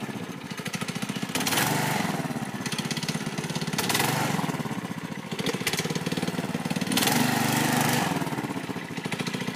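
Small engine of a home-built go-kart running with a fast, even firing beat, revving up and dropping back several times as the kart pulls away and moves off.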